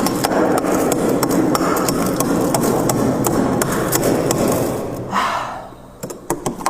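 Close-miked crunching of freezer frost ice: dense crackling crunches for about four and a half seconds, then a few separate crunches near the end.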